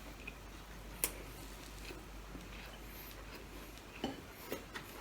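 Quiet eating sounds at a meal: a few faint, sharp clicks and smacks of utensils and mouth, one about a second in and a small cluster near the end.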